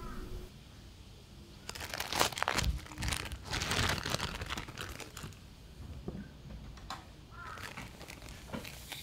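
Plastic bread crumb bag crinkling as it is handled, loudest from about two seconds in to about five seconds in, then quieter rustles and a few light taps.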